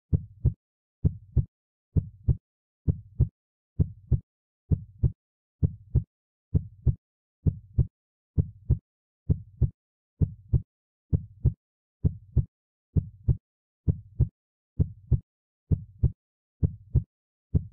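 Heartbeat sound effect: steady lub-dub double thumps, about one beat a second.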